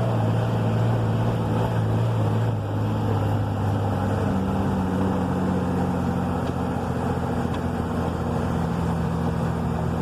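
A vehicle's engine running steadily under way on a dirt road, its note shifting slightly a few seconds in.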